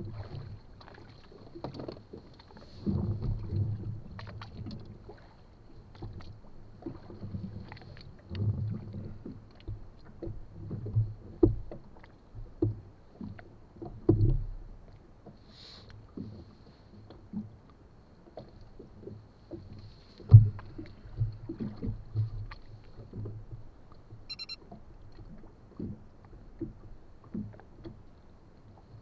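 Irregular knocks and low thumps on a small inflatable boat, with a low rumble between them. The loudest is a sharp knock about two-thirds of the way in.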